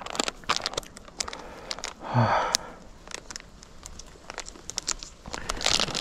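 Plastic candy bag crinkling and rustling in the hands as it is worked open, a run of short sharp crackles. About two seconds in there is a brief low vocal sound, the loudest moment.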